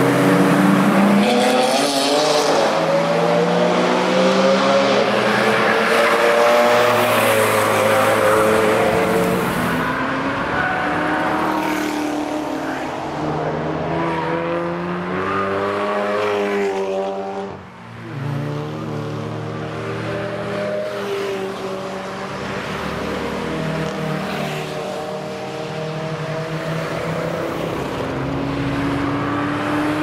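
A run of road cars driven hard on a race track, passing one after another through a corner, engines revving up and down as they brake and accelerate. The sound drops away sharply for a moment just past halfway, then the next car comes through.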